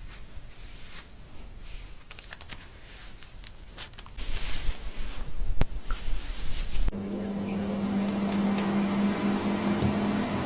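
Scalp-care treatment sounds: faint taps and rubbing, then about four seconds in a loud hiss lasting some three seconds, then a small electric motor running with a steady hum.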